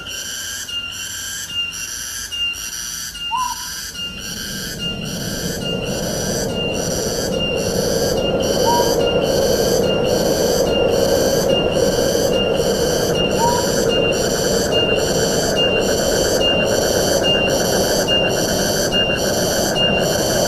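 Wind rushing through forest foliage, swelling from about five seconds in and then holding strong. Behind it runs a steady high pulsing chorus, about one and a half pulses a second, and a few short rising chirps sound.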